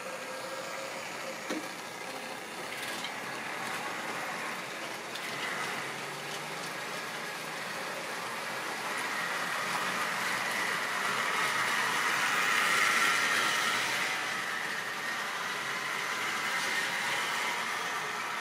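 Model railway train running: the locomotive's small electric motor whirring and the wagons' wheels rolling along the track, growing louder through the middle as it passes close, then easing off. A single click about a second and a half in.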